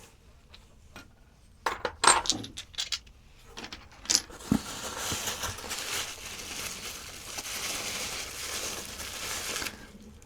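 Knapped stone arrowheads clinking and knocking against each other and a hard surface, a few sharp clinks, then a steady rustle of packing material being handled for about five seconds that stops suddenly.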